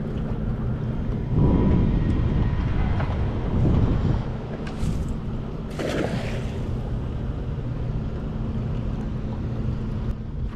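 A cast net lands on the water in one splash about six seconds in, with a steady low rumble throughout that is heaviest in the first few seconds.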